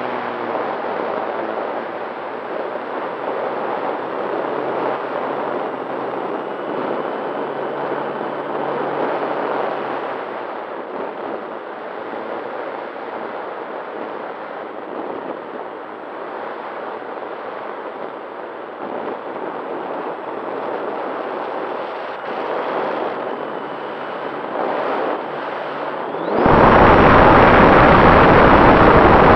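Airflow rushing over an RC airplane's nose-mounted camera while the plane flies at low throttle, with faint tones from the motor drifting in and out. About 26 seconds in, the sound jumps suddenly to a much louder steady rush of propeller and wind as the plane noses up into a climb.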